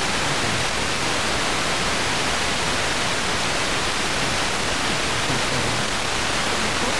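Steady FM interstation hiss from a Tecsun PL-606 portable radio tuned to 89.7 MHz while no station is coming through. It is the static between aircraft-scatter reflections of a distant transmitter's signal.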